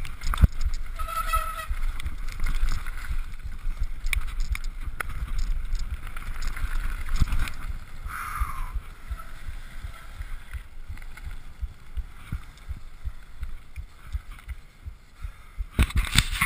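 Ride noise from a Turner downhill mountain bike picked up by an on-bike action camera: a dense low rumble of wind and vibration with the bike rattling and clicking over the trail, easing to a quieter roll about halfway through. Brief high squeals come about a second in and again near eight seconds, and a burst of sharp clicks near the end.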